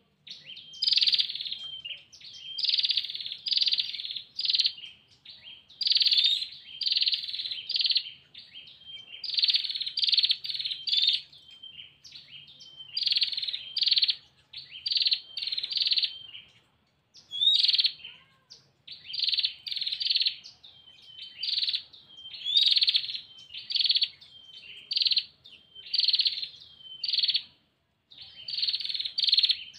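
Female prinia (prenjak) calling a male with its rapid 'ngetir' call: short, harsh notes in quick runs of two to four, repeated after short pauses.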